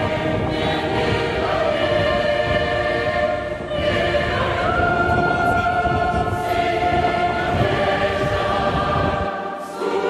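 Choir music: voices singing long held notes. Beneath it a low rumble that cuts off about nine seconds in.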